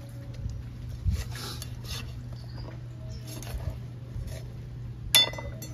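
A large knife cutting up a duck carcass on a wooden chopping board: scraping and slicing of the blade through flesh and skin, with a dull thud about a second in. Near the end comes a sharp chop as the blade strikes the board, the loudest sound.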